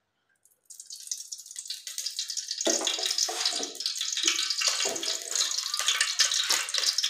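Cooking oil sizzling and crackling in a hot steel pot. It starts about a second in and swells into a dense, steady crackling hiss within a few seconds.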